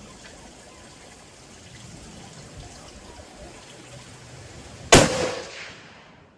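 A single rifle shot from a scoped rifle about five seconds in: one sharp crack followed by about a second of echo dying away, over a faint steady background hiss.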